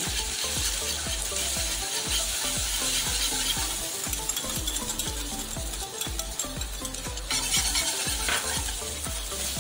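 Beaten egg sizzling in hot oil in a non-stick pan while a utensil repeatedly scrapes and taps across the pan, scrambling it into small curds.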